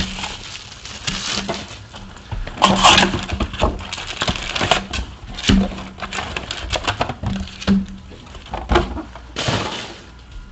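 Cardboard and plastic packaging being handled and torn open: irregular rustling, crackling and ripping as a new hobby box of trading cards and its packs are opened.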